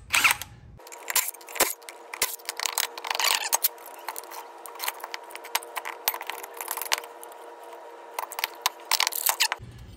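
Irregular metal clinks, taps and scraping as a Silverado 2500HD's front wheel hub bearing assembly is wiggled and pulled out of its steering knuckle once its four bolts are out, with a burst of clinks near the end.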